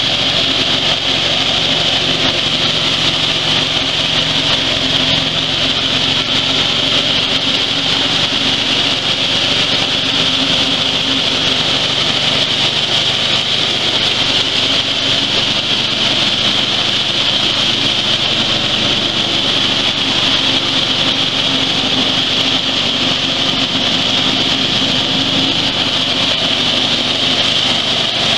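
Engine-driven dry-coffee huller running steadily under load while dried coffee is poured into its hopper and hulled: a steady engine drone with a strong high hiss over it.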